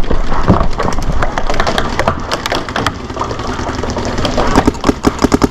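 Paintball markers firing: scattered pops and paintballs cracking against the bunkers, then near the end a rapid, evenly spaced string of shots, about ten a second.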